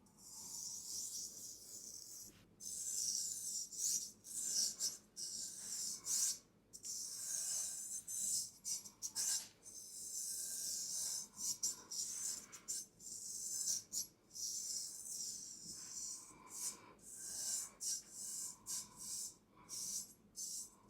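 Traditional barber's straight razor scraping in a long series of short, hissy rasping strokes, with brief gaps between them.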